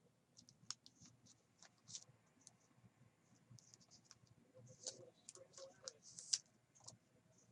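Faint clicks and scratchy rustles of trading cards being handled and slid against one another, scattered irregularly, busiest past the middle.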